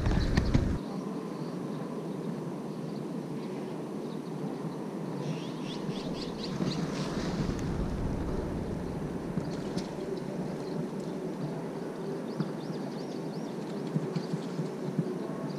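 Outdoor pond-side ambience: wind rumbles on the microphone for about the first second, then a steady low hiss with a few faint bird chirps now and then.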